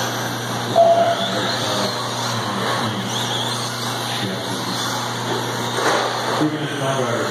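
Radio-controlled cars racing on a dirt track: motors whining and tyres scrabbling over a steady low hum, with a sharp knock about six seconds in.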